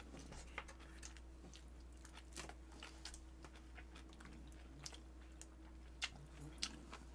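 Faint close-up eating sounds: chewing, with a dozen or so small scattered clicks and smacks over a low steady room hum.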